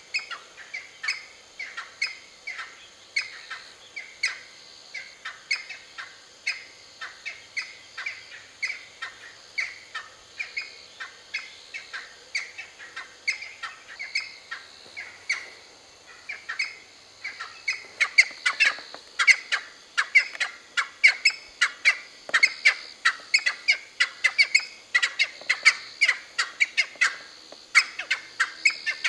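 Cheer pheasants calling: a continuous run of short, sharp chirping notes, about two or three a second, growing louder a little past halfway.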